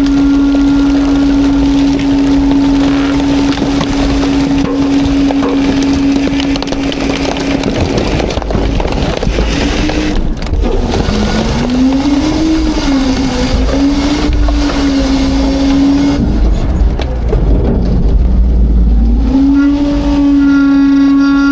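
Heil Freedom rear-loader garbage truck running a packing cycle. A steady machine whine wavers and sags in pitch through the middle as the packer crushes trash in the hopper, with crackling and a heavy low rumble, then steadies again near the end.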